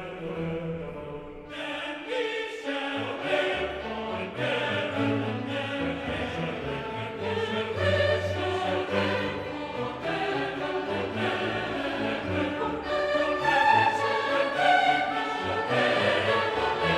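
Background music with choir-like voices over orchestral instruments, growing fuller about a second and a half in.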